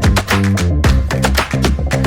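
Background music with a steady beat: plucked strings over bass and drums.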